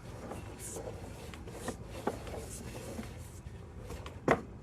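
Sewer inspection camera cable being fed down a cast iron sewer line: a steady low hum with a few scattered knocks, the loudest one near the end.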